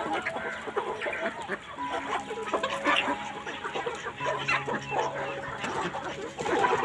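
A large flock of free-range Indian country chickens (nattu kozhi) clucking and calling over one another as they crowd in to feed, with many short overlapping calls.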